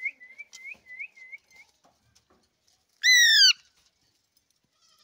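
A quick run of about six short, high chirping whistles. About three seconds in comes one loud half-second squawk from an Alexandrine parakeet, falling slightly in pitch.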